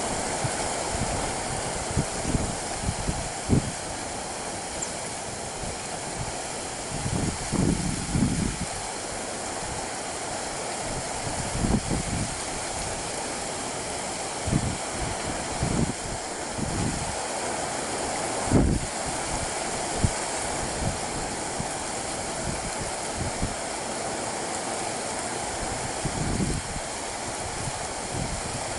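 Steady rushing roar of a Boeing 737-800's CFM56-7B jet engines, with wind buffeting the microphone in irregular low thumps.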